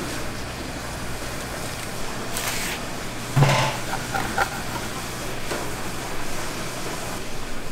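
Steady hum and hiss of a busy market food stall kitchen, with a short loud clatter about three and a half seconds in.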